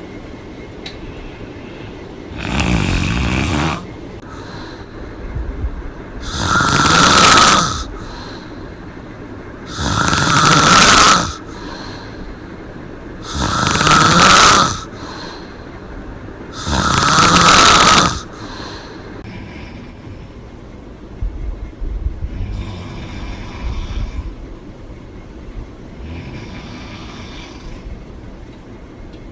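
A woman snoring loudly with her mouth open. There are five long snores about three and a half seconds apart, then the last ten seconds are quieter and uneven.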